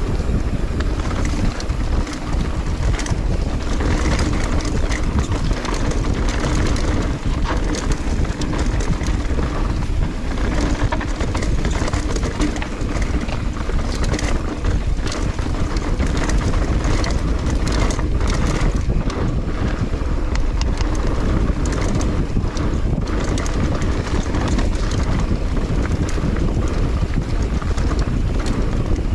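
Mountain bike descending a dirt singletrack at speed: wind buffeting the action-camera microphone, tyres rolling over dirt and leaves, and the bike rattling and clicking over bumps.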